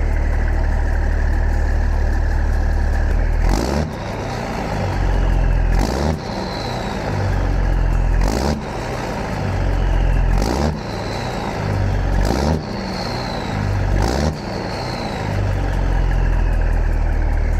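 Cat C15 diesel in a Peterbilt 389, standing still and blowing black smoke, revved again and again after fitting an aftermarket power harness. It runs steadily for a few seconds, then rises and falls about every two seconds, with a sharp crack and a short falling whistle at each rev, about six times, before settling into steady running again.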